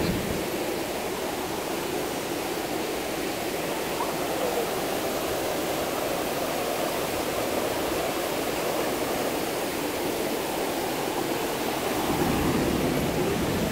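Small waterfall pouring into a pool: a steady, even hiss of falling water, a little louder near the end.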